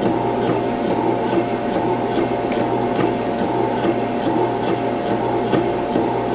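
Conveyor belt running: a steady mechanical hum and rattle, with faint regular ticking about twice a second.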